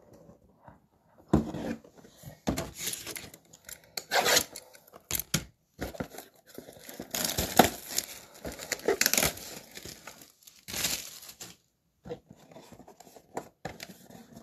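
Wrapping being torn off a box of Panini Absolute football cards, in several bursts of tearing and crinkling, then quieter rustling near the end as the packs are taken out.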